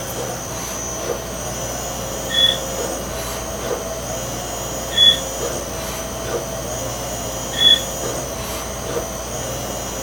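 CNC lathe running dry while threading a steel gas cap: a steady machine hum with a short, high-pitched squeal three times, about every two and a half seconds, as the threading tool makes its passes without coolant.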